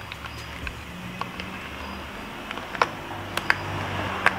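Scattered light clicks and taps from a Yamaha XSR900 speedometer unit and its wiring being handled and fitted onto a dash bracket, about half a dozen, the sharpest near the end, over a steady low hum.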